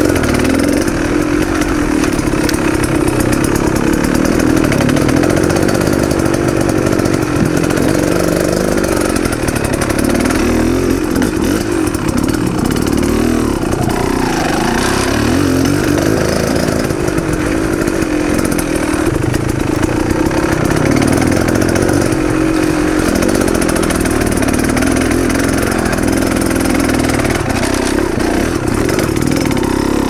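Dirt bike engine running as the bike is ridden along a trail, heard close up from the bike, its pitch rising and falling with the throttle.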